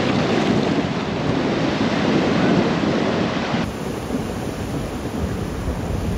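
Sea water washing over lava rocks and a dog splashing into the shallows, with wind noise on the microphone. A little over halfway through it cuts to a quieter wash of water around the swimming dog.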